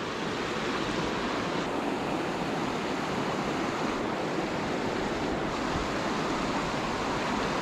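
Steady rush of water flowing down a small coastal creek.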